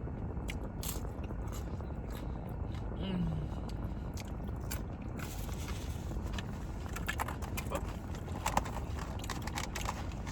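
Close-miked chewing and crunching of food: a run of short, sharp crunches, coming thicker in the second half, over a steady low background rumble.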